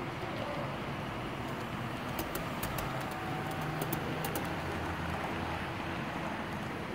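Model freight train running on the layout with a steady rumble and hum, and a quick run of light metallic clicks about two seconds in as its wheels pass over the track.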